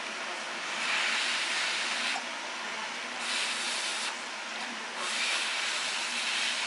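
A person eating ramen noodles with chopsticks, slurping and drawing in air at the mouth in several noisy bursts of about a second each, over a steady background hiss.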